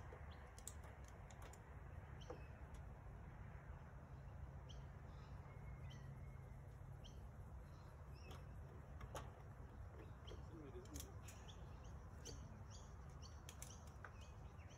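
Faint outdoor ambience: scattered short, high bird chirps over a low steady rumble.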